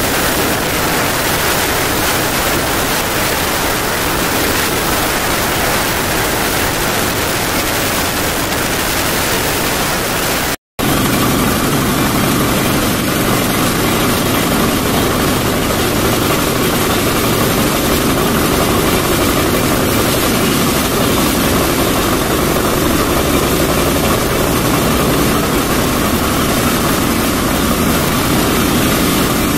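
Steady rush of wind and wheel-on-rail running noise from a moving passenger train, heard from an open door or window. The sound cuts out for a moment about ten seconds in.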